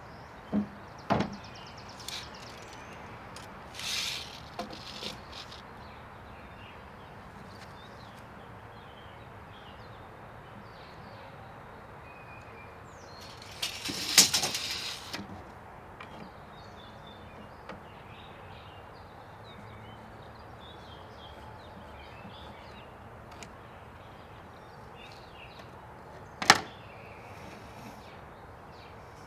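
Carpentry handling sounds while a 2x4 is measured on a plywood deck: a few knocks of wood and tools set on the deck, a rattling burst about halfway through, and a single sharp knock near the end.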